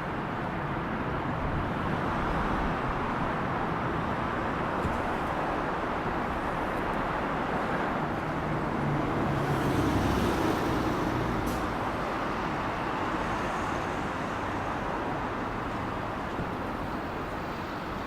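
Hankyu 5500 series electric train running: a steady rumble of wheels and motors, swelling a little about halfway through.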